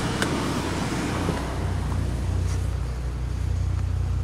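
Car engine idling with a steady low hum. A single sharp click comes about a quarter second in, and a rustling noise over the first second and a half then gives way to the idle alone.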